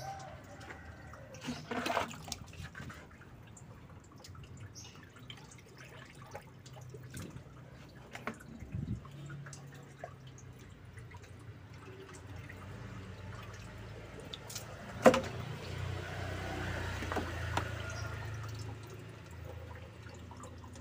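Water being poured into a car radiator's filler neck, splashing and dripping as it runs straight out through a leaking water pump. A few small knocks are heard, with one sharper click about 15 seconds in.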